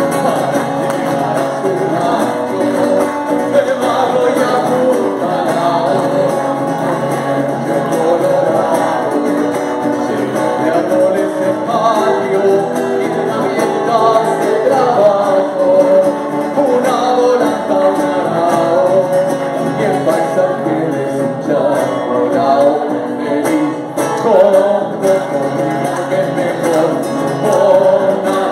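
Live acoustic folk song: an acoustic guitar and a second small strummed string instrument accompanying male and female singing.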